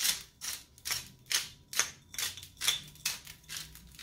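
Black pepper grinder being twisted, a rapid series of short, sharp grinding crunches about three a second as peppercorns are cracked.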